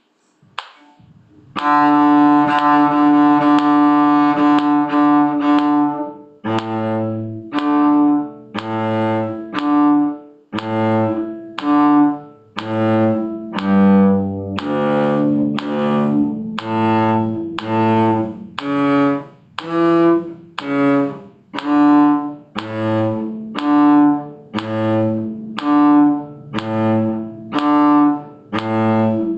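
Cello bowing a slow lesson-pace melody: a long held note first, then separate notes about one a second, some on the low strings.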